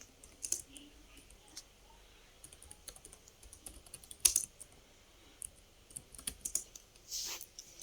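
Computer keyboard typing: sparse, irregular keystrokes with pauses between them, one louder click about four seconds in.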